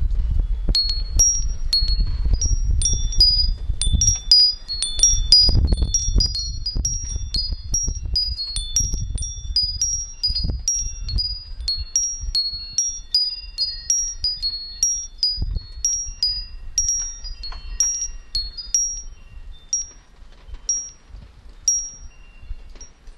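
Wind chimes tinkling: many short, high ringing notes at irregular intervals, thinning out toward the end. A low rumble sits under them for the first several seconds.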